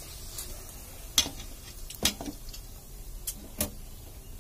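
Wire-mesh skimmer clicking against a wide metal pan of frying oil as a puri is turned, a handful of sharp, irregular clicks over a faint steady hum.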